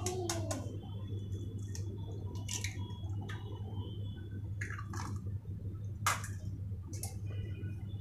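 An egg being cracked and emptied into a bowl: scattered sharp taps and clicks of shell on the rim, with wet squishing as the egg slides in, over a steady low hum.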